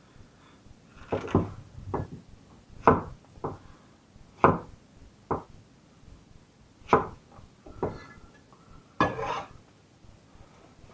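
A kitchen knife chopping courgette on a wooden chopping board: about a dozen irregular knocks of the blade through the vegetable onto the board, with a longer, noisier stroke near the end.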